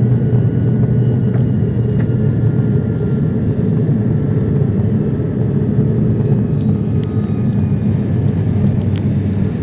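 Airliner engines heard from inside the passenger cabin during the climb just after takeoff: a loud, steady low noise that holds evenly, with no change in pitch.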